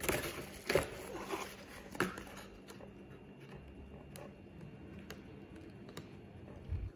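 Glossy paper booklet being handled and leafed through: pages rustling and turning with light clicks and taps, busiest in the first two seconds, then fainter and sparser.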